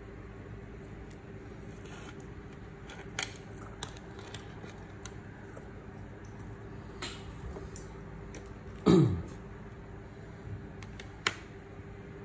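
Scattered light clicks and taps of metal wristwatches and watch bands being handled, over a steady low hum. About two thirds of the way through comes one louder, short sound that drops quickly in pitch.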